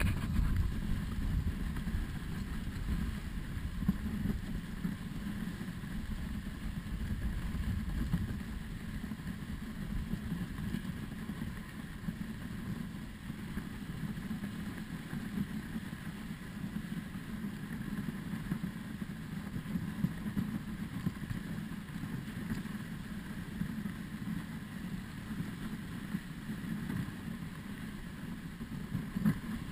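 Dog sled running over a packed snow trail: a steady low rumble from the runners sliding and grating on the hard snow.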